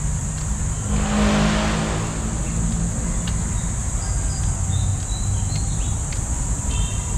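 Road traffic rumbling steadily, with one motor vehicle passing by about a second in, its engine noise swelling and then fading. Under it runs a steady high insect drone, and a few short bird chirps come later.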